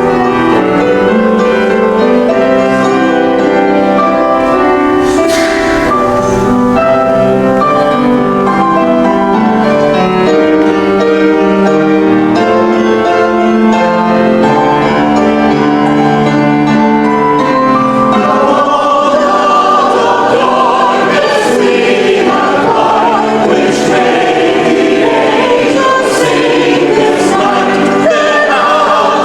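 Church choir singing with accompaniment: held, steady chords through the first part, then fuller singing with wavering voices from a little past halfway.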